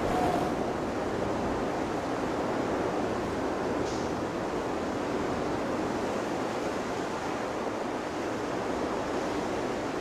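Steady rushing noise, even throughout, with a brief faint high sound about four seconds in.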